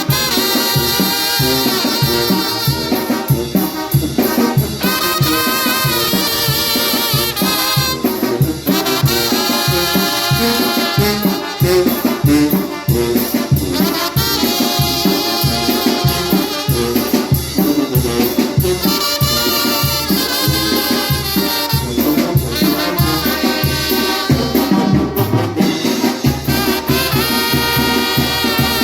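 Trumpet playing a lively Latin melody with vibrato on its held notes, over a steady salsa-style rhythm of bass and percussion.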